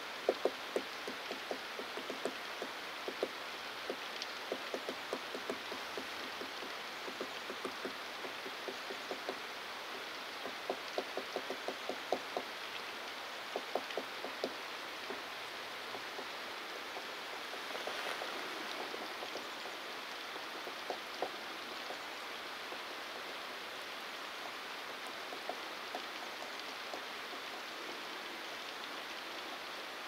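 Male hairy woodpecker pecking its bill against a dead tree trunk while foraging for insects, in quick irregular runs of taps that come thick in the first half and thin out to scattered single taps later. A steady background hiss runs underneath.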